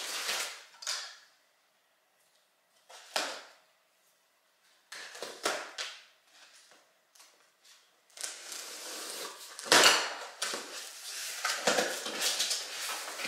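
Cardboard box being handled and slit open with a knife along its packing tape: a knock and a few short scrapes at first, then from about two-thirds of the way through a continuous crackle and rustle as the flaps are pulled open and the packaging inside is handled.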